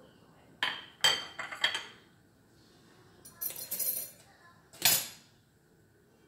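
Kitchenware clinking against a stainless cooking pot: a cluster of metallic clinks about a second in, a brief scraping rustle a little later, and one sharp knock near five seconds, the loudest.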